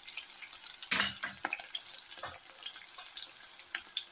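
Sliced onions, peanuts and dried red chillies sizzling in hot oil in an aluminium pan, a steady hiss with small scattered crackles, and a knock about a second in.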